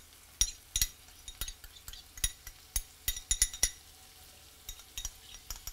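Metal spoon scraping and tapping chopped onion and garlic out of a ceramic bowl into a frying pan: an irregular run of light clicks and clinks, over a faint sizzle of the onion in hot oil.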